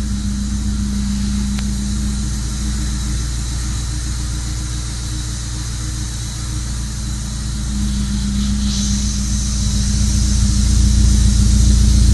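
Mazda 323 SP20's 2.0-litre four-cylinder engine running with a steady hum; a higher hiss comes in about nine seconds in and the sound grows a little louder. The owner calls it an annoying filter sound.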